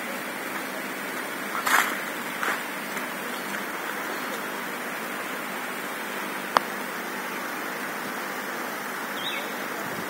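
Steady rushing of water, with a sharp knock about two seconds in and a short click a little past six seconds.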